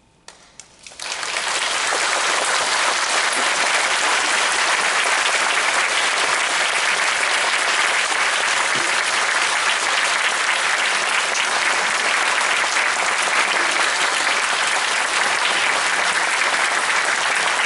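Audience applauding: a few scattered first claps, then full, steady applause from about a second in.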